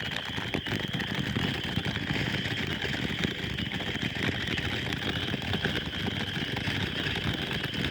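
Small ground fountain firework burning: a steady hiss with fine crackling.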